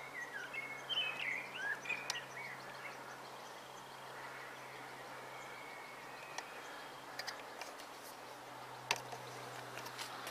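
Outdoor evening ambience: a small songbird chirps in short rising and falling phrases for the first couple of seconds over a steady low hum. A few faint clicks come near the end.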